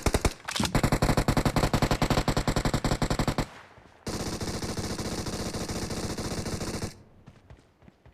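Video-game automatic gunfire: a rapid burst of about a dozen shots a second that lasts nearly three seconds. It is followed by a steady rushing noise for about three seconds that cuts off suddenly, then a few faint clicks.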